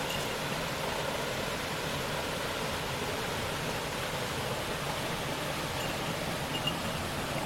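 Steady rushing of flowing water, as from a stream.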